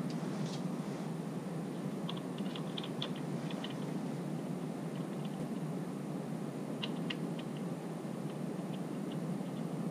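Light metallic clicks and ticks, in two short clusters and then a few scattered ones, as the clutch hub nut and its washer are turned by hand onto a Sportster's mainshaft. A steady hiss runs underneath.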